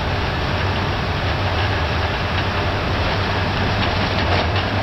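Airbus A380 at takeoff thrust, heard in the cockpit late in the takeoff roll just past V1: a steady, loud rumble of engines, airflow and wheels on the runway, with light irregular knocks.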